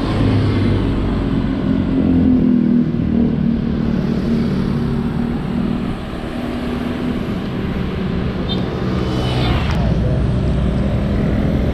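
Motor vehicle engine running close by amid road noise, with a louder whoosh of something passing about nine seconds in.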